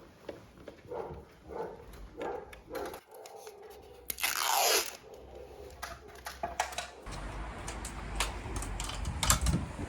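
Installation work handling noise: scattered clicks and crunching, with one brief loud falling swish about four seconds in and a low rumble in the last few seconds.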